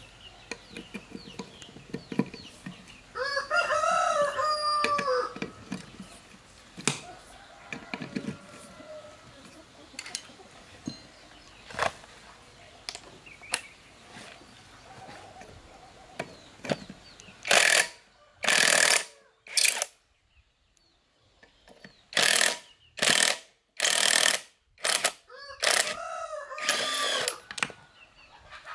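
A cordless impact wrench runs in a series of short, loud bursts from about halfway through, working on the rusted wheel nuts of a tractor wheel. Before that there are scattered clicks of a hand ratchet and socket. A rooster crows about three seconds in and again near the end.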